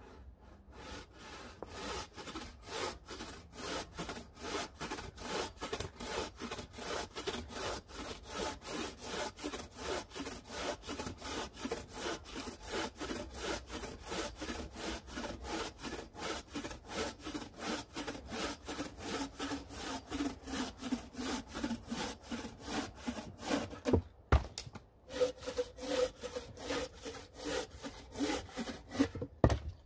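Bow saw cutting through a log in quick, even back-and-forth strokes. Near the end the sawing breaks off with a sharp knock, then starts again.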